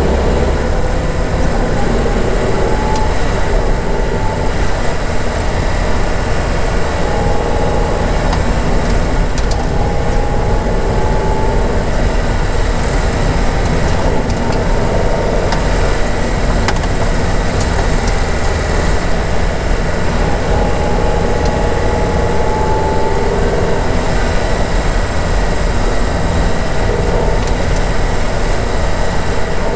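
Steady low rumble of a car's engine and tyres heard inside the cabin while it drives along a rough, muddy dirt track, with faint rattles now and then.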